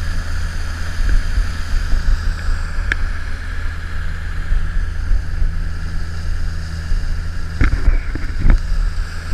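Outboard motor running steadily as a small boat travels at speed over the water, with wind on the microphone.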